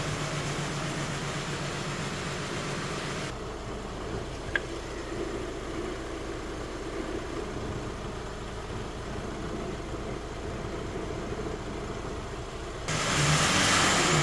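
Diesel engine idling steadily. The sound changes abruptly about three seconds in, and it gets louder and hissier near the end.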